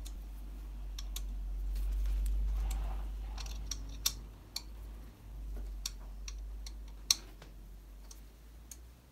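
Hex key clicking and tapping against the metal handlebar screws as it is fitted and turned, in sharp irregular clicks, with hands rustling on the bike's frame about two to three seconds in. A steady low hum runs underneath.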